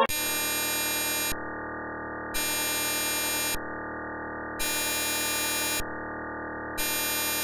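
Electronic emergency alert tone: a steady synthesized buzz that starts abruptly. A harsher, brighter buzz is layered on and off over it, each phase lasting about a second.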